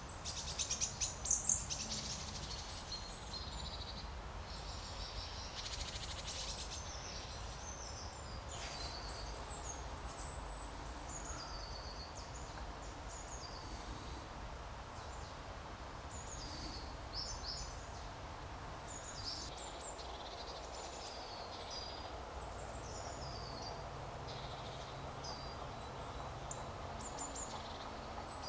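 Woodland songbirds calling and singing: many short, high chirps and whistled phrases throughout, over a steady low outdoor background rumble. A brief louder rustling burst comes about a second in.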